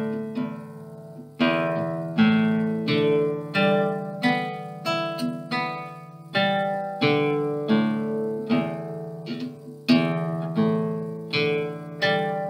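Córdoba nylon-string classical guitar played fingerstyle: a slow passage of plucked chords and single notes, each ringing out and fading before the next.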